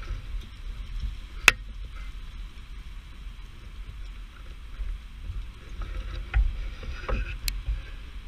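Steady hiss of hail and rain falling on parked cars and pavement, over a low rumble. Two sharp ticks stand out, the louder about a second and a half in and the other near the end.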